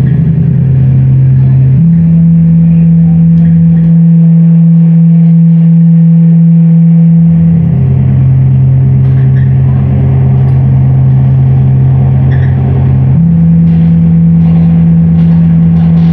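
Loud, sustained low electronic drone from a live noise performance, with a gritty crackle above it. The drone steps up in pitch about two seconds in, drops back down a little before halfway, and steps up again near the end.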